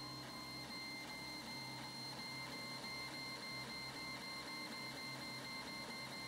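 Prusa i3 3D printer running a print: its stepper motors give a steady high whine broken by short regular dips, over a low steady hum.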